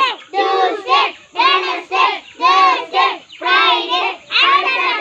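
A group of children singing or chanting an action song together in short rhythmic bursts, about two a second.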